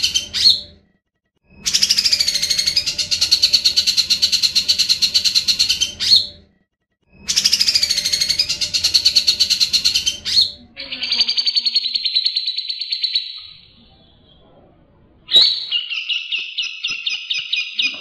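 Grey-cheeked bulbul (cucak jenggot) singing long, fast, rolling trills in loud phrases of several seconds each, with short breaks between them.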